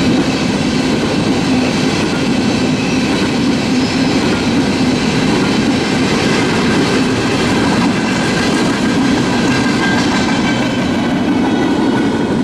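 A CSX freight train's empty bulkhead flatcars rolling past, a loud, steady sound of steel wheels on rail with clickety-clack over the rail joints.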